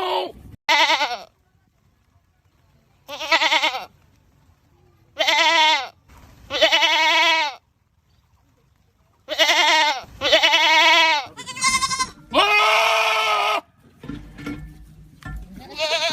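Goats screaming: a run of about nine loud, drawn-out bleats, each lasting under a second to just over a second, with short pauses between them. A low rumbling noise comes before the last call.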